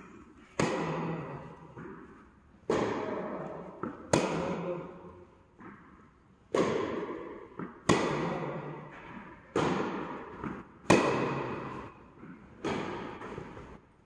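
Tennis rally: rackets striking a tennis ball about eight times, roughly every one and a half to two seconds, each hit a sharp pop that echoes in an indoor tennis hall.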